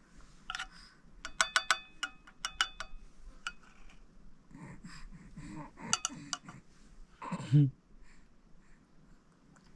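Metal spoon scraping and clinking against a plate while scooping up mashed rice, with a quick run of ringing clinks between about one and three seconds in. Low voice sounds follow, the loudest a short falling vocal sound about seven and a half seconds in.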